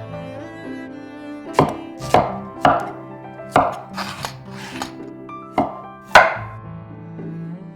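A kitchen knife chopping on a cutting board: about eight to nine sharp, irregularly spaced strokes, the last one the loudest, over soft background string music.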